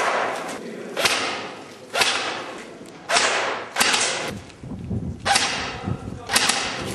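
Airsoft rifle shots fired singly, sharp cracks about once a second, each ringing out in an empty brick-and-concrete room. Between about four and a half and six seconds in, a lower rumbling with small knocks.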